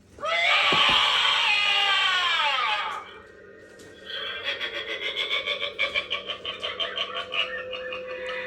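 Sitting scarecrow Halloween animatronic playing its recorded sound effects through its built-in speaker. A loud shriek falls in pitch over about three seconds, and after a short pause a rapid, pulsing cackle follows.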